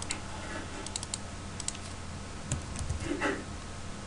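Scattered sharp clicks of a computer keyboard and mouse, irregular taps over a steady low electrical hum, with a short muffled thud about three seconds in.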